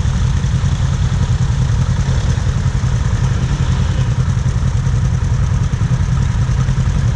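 ATV engine idling steadily, a low even drone with no revving.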